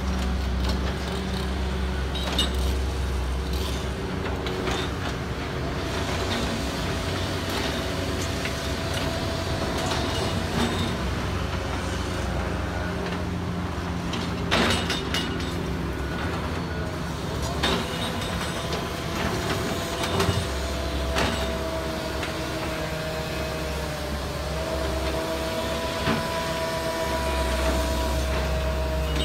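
Excavator diesel engines running under load with a steady whine, and scattered clanks and knocks of concrete rubble being moved.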